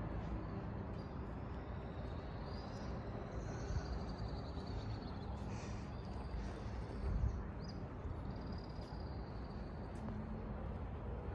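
Birds calling and chirping, with high thin calls over a steady low outdoor rumble, and a brief low thump about seven seconds in.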